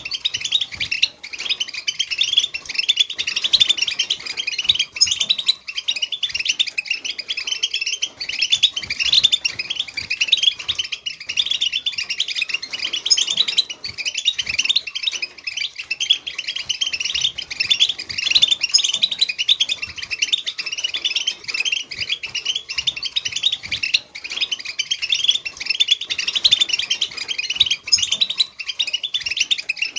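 Many European goldfinches twittering together: a dense, unbroken chatter of quick, high, overlapping chirps.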